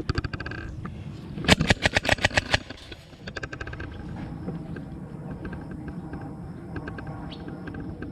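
Airsoft guns firing rapid bursts: a quick string of shots at the start, a louder burst of about ten shots around a second and a half in, then fainter, scattered shots.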